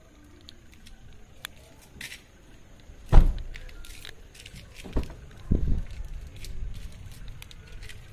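Car door shutting with a heavy thump about three seconds in, followed by two more thuds a couple of seconds later, with light clicks between.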